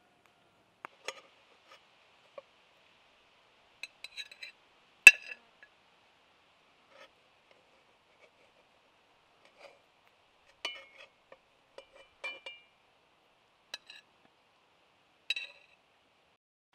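A slotted metal spatula scraping and clinking against a black frying pan and a porcelain plate as slices of pie are lifted out: scattered light scrapes and short clinks, some of them ringing briefly. The loudest is a sharp ringing clink about five seconds in.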